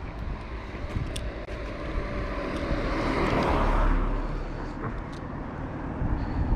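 A road vehicle passing by, its noise swelling to a peak just before the middle and then fading.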